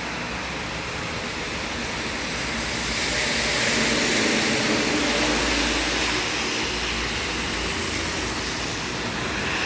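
Steady rain noise, with a louder rushing swell and a low rumble building around the middle and easing off after.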